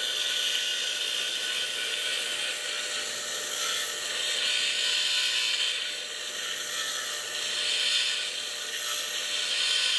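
A hand file rasping against the spinning shaft of a running Aqua-flo WaveMaster hot tub pump motor, a steady hiss that swells and eases a few times over the motor's faint hum. The shaft is being dressed clean and flat of corrosion buildup so a new shaft seal can go on.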